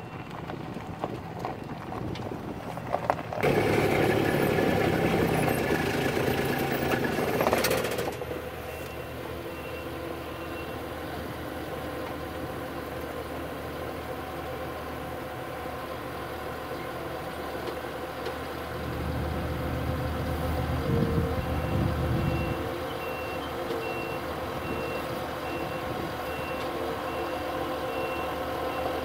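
Heavy equipment engines running steadily on a job site, with a loud stretch of noise early on and a deeper engine surge about two-thirds of the way through. A reversing alarm beeps about once a second near the end.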